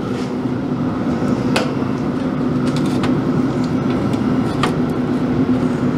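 Steady mechanical hum of a Pit Boss vertical pellet smoker's fan running with the door open, with two sharp metal clicks, about a second and a half in and near the end, as tongs scrape the cooking grate lifting off a rack of ribs.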